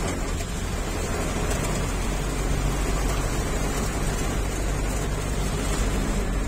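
Heavy rain falling on the roof and windows of a moving car, heard from inside the cabin, over a steady low rumble of engine and road.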